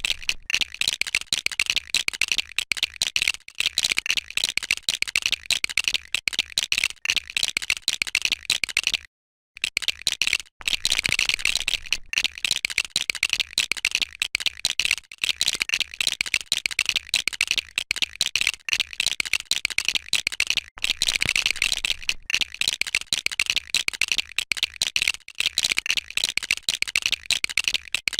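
Dense, rapid clicking and rattling of plastic LEGO bricks, going on without a break except for a short silence about nine seconds in.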